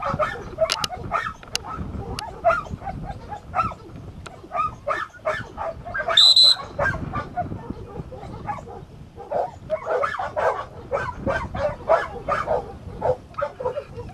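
Dogs barking over and over, several short barks a second. About six seconds in comes a single short, high whistle blast.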